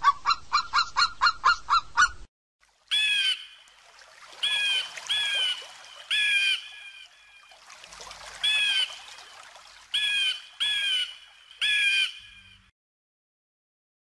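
Eagle calls: first a quick run of about a dozen short, clipped notes, about five a second, then after a brief gap about eight separate, longer, high-pitched calls spaced a second or two apart.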